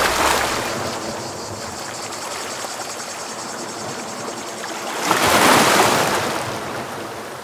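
Sea waves washing in, an even rush with two swells, the second and louder about five seconds in, fading out near the end.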